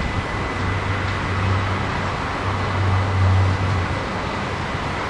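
RET metro train approaching along the track: a steady rumble with a low hum that swells in the middle.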